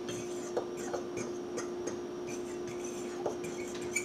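Metal fork stirring dry pancake ingredients (flour, salt, baking powder) in a mixing bowl. The fork gives light, irregular clicks against the bowl's side.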